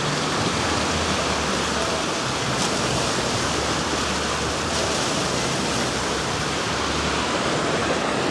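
Steady rush of running water, an even hiss at a constant level.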